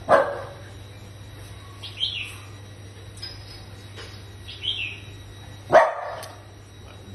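Poodle barking twice, two short sharp barks: one at the start and one near the end. Two fainter high squeaks come in between, over a steady low hum.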